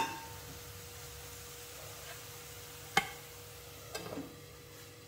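Metal cookware clinking: a sharp clink about three seconds in, then a few light clatters about four seconds in as a stainless steel lid is set onto an aluminium wok, over a faint, steady background with a thin hum.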